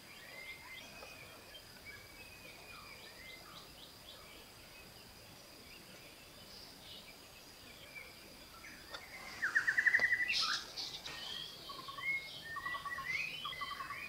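Forest birds calling with scattered short chirps and whistles over a steady high-pitched whine. About two-thirds of the way through comes a louder, quick rattling run of rapid notes, followed by busier chirping.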